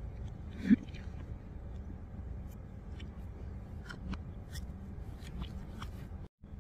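Eating sounds: chewing and scattered light clicks of a metal fork and knife against a plate, over a steady low hum. A short louder sound comes about a second in, and the audio drops out briefly near the end.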